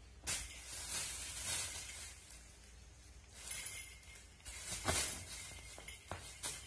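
Thin clear plastic bag crinkling and rustling in irregular bursts as a cat paws, kicks and bites at it, with a few sharper crackles about five and six seconds in.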